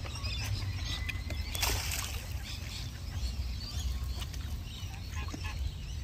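Outdoor ambience of a mixed flock of park birds feeding around a bench, with scattered small clicks and faint bird calls over a steady low wind rumble on the microphone. A brief harsh, noisy burst comes about a second and a half in.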